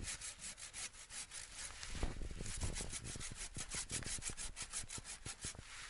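Hand saw cutting through the trunk of a fresh spruce near its base, in quick, even back-and-forth strokes.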